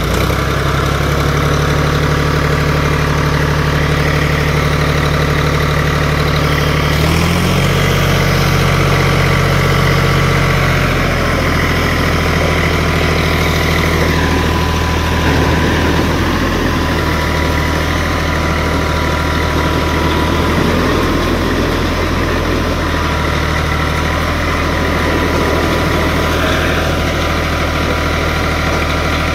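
John Deere 5310 tractor's three-cylinder diesel engine running steadily while it drives the hydraulics that lift a loaded high-dump sugarcane trolley bin. The engine note steps up slightly about seven seconds in.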